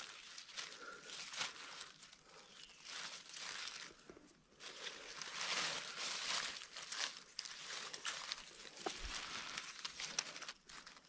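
Dry oak leaves on the forest floor rustling and crackling as a hand pushes among them and picks wild mushrooms, in uneven bursts, loudest about halfway through.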